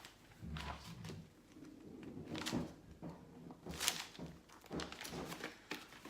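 Pen writing on paper, with light handling knocks and rustles and a sharper click about four seconds in.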